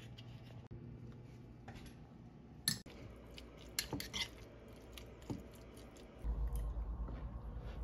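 Eating at a table: chewing with a few sharp clicks of cutlery or dishes. A steady low rumble starts about six seconds in.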